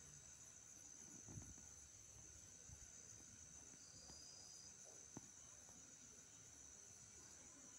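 Near silence: a faint, steady high-pitched hiss, with one soft click about five seconds in.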